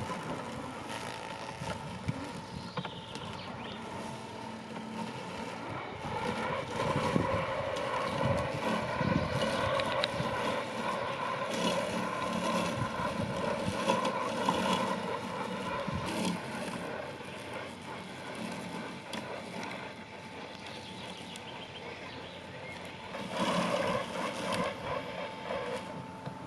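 Worx Landroid robotic lawn mower running, a steady motor noise with faint steady tones. It gets louder for about ten seconds from around six seconds in, and again briefly near the end.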